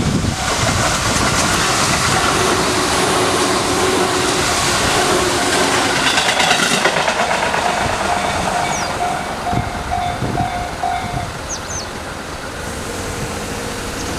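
A Tobu 8000 series electric train runs over a level crossing, its wheels clattering on the rail joints. The crossing's electronic warning bell, a Tojo Line-type tone, keeps ringing through it and stops about eleven seconds in as the train clears.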